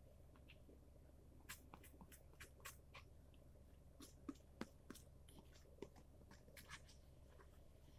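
Faint, scattered wet mouth clicks and smacks of someone eating a thick, sticky corn-starch pudding, over a low steady hum.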